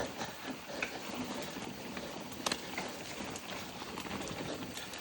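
Mountain bike rolling over a dirt trail: steady tyre and wind noise with a few sharp clicks and knocks, the clearest about halfway through.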